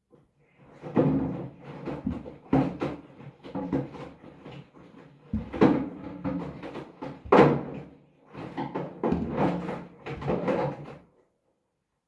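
Hoover front-loading washing machine tumbling a wet load of bath mats and mops: irregular heavy thuds and water sloshing in the drum, in uneven surges, stopping about a second before the end.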